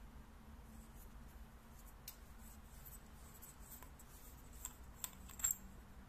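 Faint metallic clicks and light scraping as a Convoy M26C flashlight's aluminium head is unscrewed from its battery tube and the parts are handled, with a few sharper clicks near the end.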